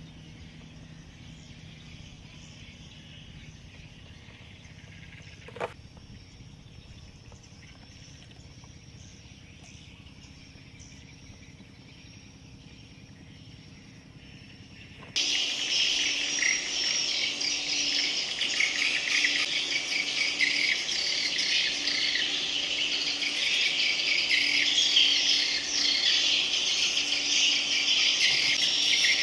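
Swiftlets twittering: a Malaysian swiftlet call track of the kind played to lure swiftlets into a nesting house. It is faint with a single click at first, then a loud, dense mass of rapid high chirps starts suddenly about halfway through and carries on.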